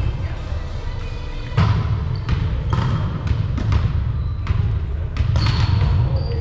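Volleyball play in a gym: a series of sharp slaps and thuds of the ball being hit and landing, ringing in the hall, over a steady low rumble.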